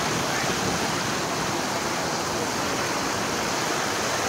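A river in spate rushing steadily, a constant roar of fast-flowing water.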